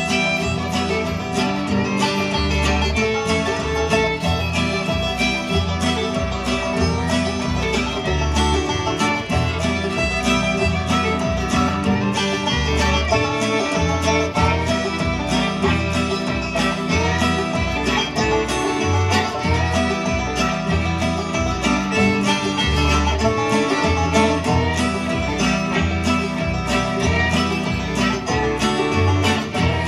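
Bluegrass string band playing live: banjo, acoustic guitar and fiddle over an upright bass plucking a steady beat.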